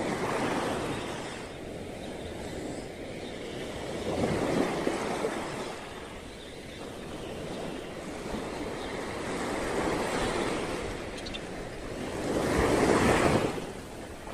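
Small waves washing up on a sandy beach, the wash swelling and fading several times, loudest near the end.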